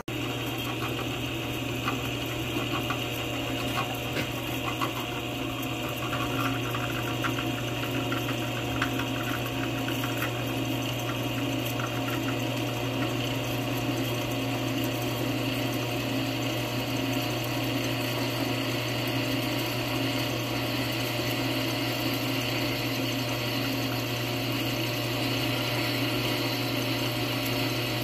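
Drill press running steadily while a freshly hand-sharpened twist drill bit cuts into a flat steel bar, dry without cutting oil, with a few light ticks in the first several seconds.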